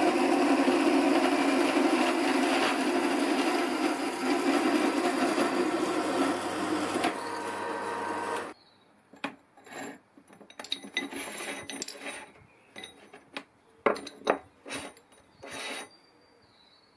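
Small horizontal metal-cutting bandsaw running and cutting through a Tange Prestige steel seat-stay tube clamped in its vise, with a steady motor hum under the cutting noise. The noise eases slightly as the cut finishes, and the saw stops abruptly about halfway through. Scattered clicks and knocks follow as the vise and tube are handled.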